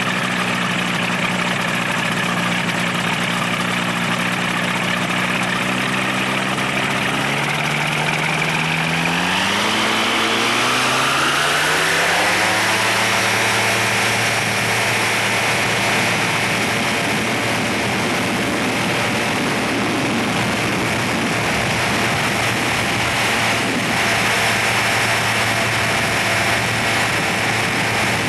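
Flexwing microlight trike's engine and propeller, running steadily at low power, then opened up about eight seconds in: the pitch rises smoothly over about four seconds to full take-off power. It then runs steady at the higher pitch with wind noise as the trike climbs away.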